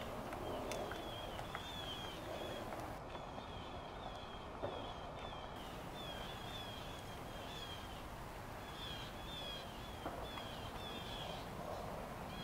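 Quiet outdoor ambience in which small birds chirp over and over, short falling notes in quick runs, with a few faint clicks of footsteps on stone.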